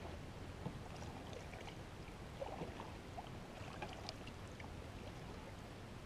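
Faint clicks and light taps of fishing tackle being handled aboard a kayak, over a steady low rumble.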